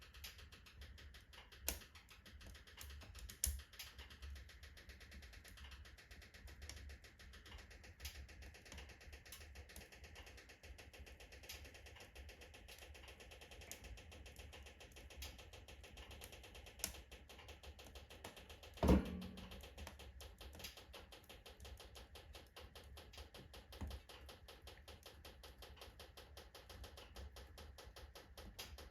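Oak logs burning in a fireplace: faint crackling with scattered sharp pops, and one loud crack about two-thirds of the way through.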